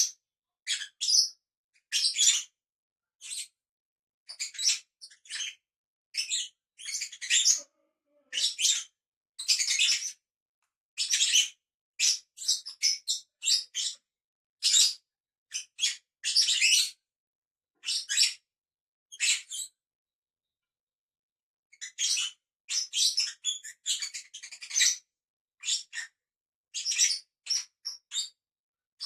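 Pet lovebirds chirping: short, high-pitched calls in quick, irregular runs, with a pause of about two seconds roughly two-thirds of the way through.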